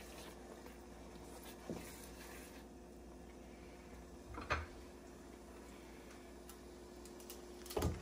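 Faint kitchen handling sounds: three short knocks, about two seconds in, midway and at the end, the last two louder, over a low steady hum.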